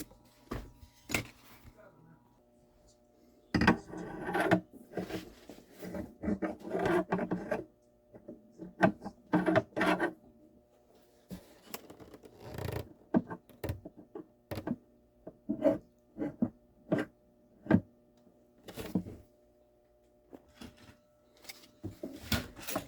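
Hand-tool work on an acoustic guitar's wood: scattered knocks and clicks with short bursts of scraping or rubbing, separated by quiet gaps.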